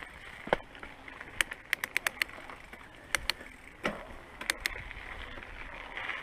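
Scattered sharp clicks and light knocks from a mountain bike and riding gear being moved, with a quick run of clicks about one and a half to two and a half seconds in.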